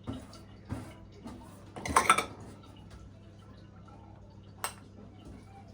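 Kitchen dishes and utensils knocking and clinking: a few light knocks, a louder cluster of clatters about two seconds in, and one sharp clink near the end.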